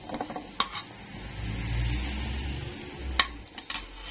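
Cumin seeds sizzling in hot oil in a steel kadhai as they roast for a tempering. A metal slotted spoon stirs them, clinking sharply against the pan twice, with a couple of lighter taps near the end. A low rumble runs underneath.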